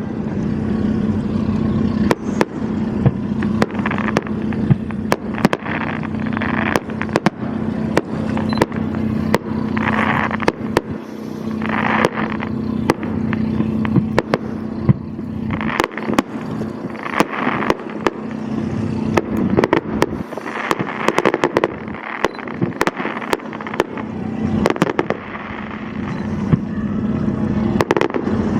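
Fireworks display: a dense run of sharp bangs from bursting shells, with patches of crackling, over the steady low hum of a boat engine.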